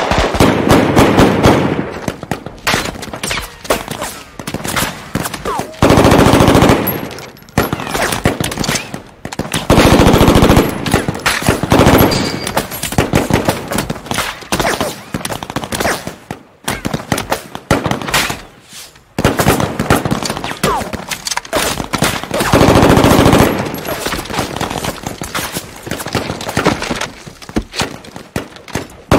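Firefight gunfire: heavy bursts of automatic weapons fire every few seconds, with scattered single rifle shots between them.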